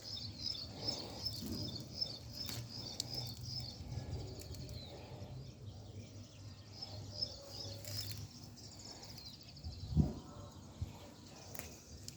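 Small birds chirping in quick repeated high notes, about four a second, in two runs, over a low steady rumble, with a single thump near the end.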